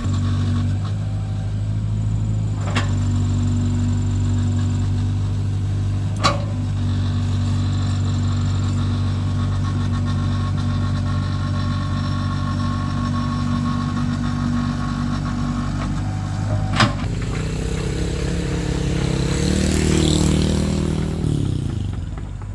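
Excavator's diesel engine running steadily, with three sharp knocks spread through it. Near the end the engine note rises and wavers for a few seconds before settling.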